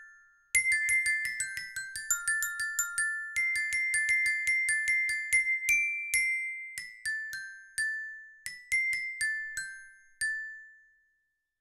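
Sampled tuned metal mallet percussion from Orchestral Tools' Abacus library, bell-like like a glockenspiel, playing a high melody of quick struck notes that ring briefly. The phrase starts after a short pause and ends about ten seconds in, with the last note left to ring out.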